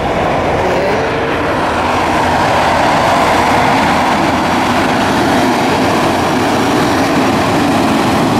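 Diesel tractor-trailer tanker trucks passing close by, engine and tyre noise loud and steady, with a steady droning tone through it. The noise swells a little about two to three seconds in as the next truck comes up.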